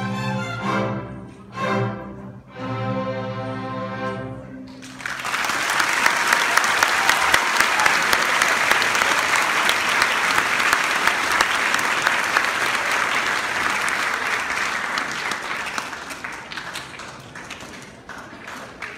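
A string orchestra plays its last held chords, then the audience breaks into applause about five seconds in. The applause fades away near the end.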